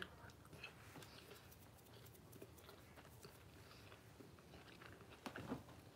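Faint chewing of a mouthful of food, with scattered soft crunches and mouth clicks. It gets a little louder just before the end.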